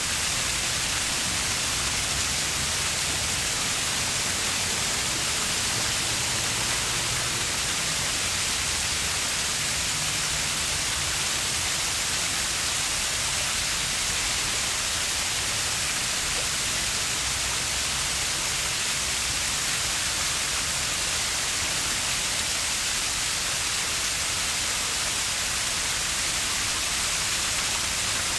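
Steady hiss of flowing river water, even and unbroken, with a faint low rumble underneath.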